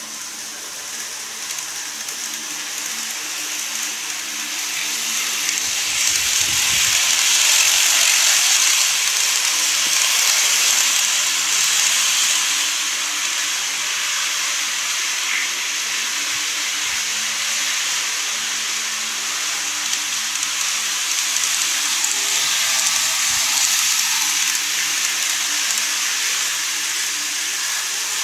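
Model train running on the layout's track: a steady hissing rush of wheels on rail and motor. It swells as the train nears and passes, is loudest about seven to twelve seconds in, then holds at a slightly lower level.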